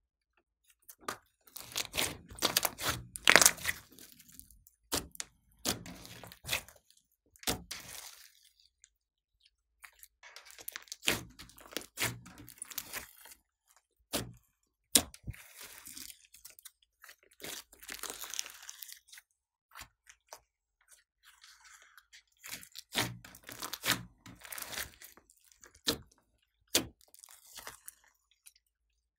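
Hands stretching, folding and pressing a large mass of glossy slime: sticky, wet crackling and popping in clusters of a second or two, with short pauses between them.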